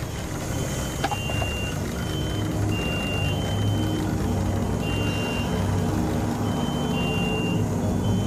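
Electronic beeping in two close high pitches, short and longer beeps in an uneven pattern, over a steady low drone that slowly gets louder.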